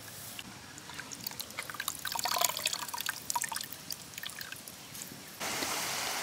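Grated coconut squeezed by hand in water in a clay pot to press out coconut milk: wet squelching, dripping and trickling, busiest in the first half. About five seconds in it cuts to a steady hiss.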